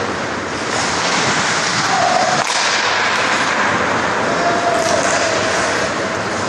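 Ice hockey play in an indoor rink: a steady rush of skates on the ice in the echoing arena, with sharp clacks about two and a half and five seconds in.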